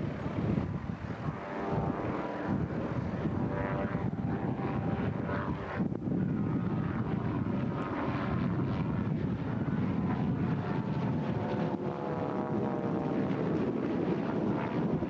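Propeller airplane engine running steadily, its drone slowly shifting in pitch as the plane moves past.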